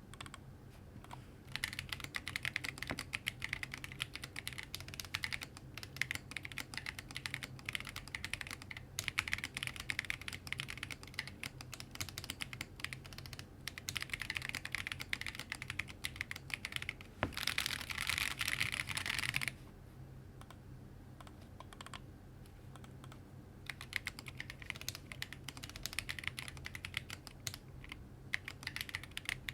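Typing on a Lily58 split mechanical keyboard with tactile Neapolitan switches and high-profile sculpted MT3 keycaps: a continuous stream of key clacks that starts about a second and a half in. Past the middle comes a denser, louder flurry of keystrokes, then a pause of a few seconds before typing resumes.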